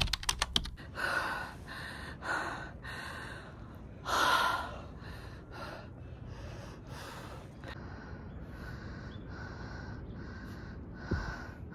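A person panting hard, quick regular breaths in and out with one louder breath about four seconds in: out of breath from climbing a long run of stairs.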